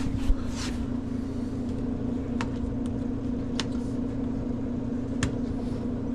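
Screwdrivers and picks clicking against the washer's parts, four short sharp clicks spaced a second or more apart, over a steady low machine hum.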